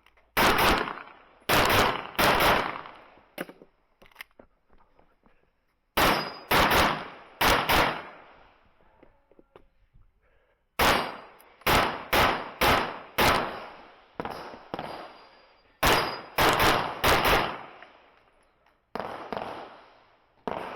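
Handgun fired rapidly in an IPSC stage, the shots mostly in quick pairs, in four strings separated by pauses of a few seconds.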